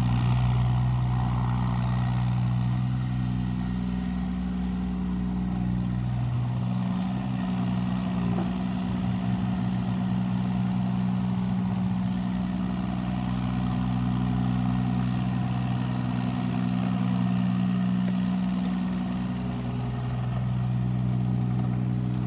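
Case CX36 mini excavator's diesel engine running steadily while the machine is worked. Its note wavers and dips for several seconds about a third of the way in, then settles again.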